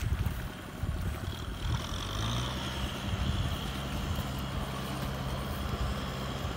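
Tractor engine running steadily, a low hum that settles in about two seconds in, with wind rumbling on the microphone.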